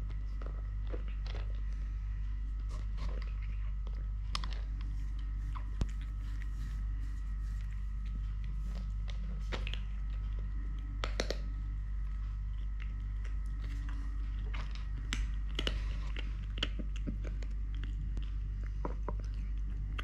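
A kitten eating, with irregular crunching bites and chewing, over a steady low hum.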